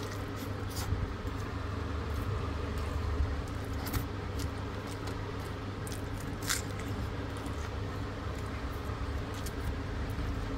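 Cooked rice and dal being mixed and squished by hand on a foil-lined paper plate, with a few sharp crinkles or clicks, over a steady low hum.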